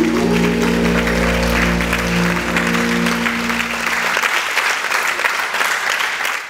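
Audience applauding over the last held chord of the foxtrot music; the music stops about four seconds in and the applause carries on alone.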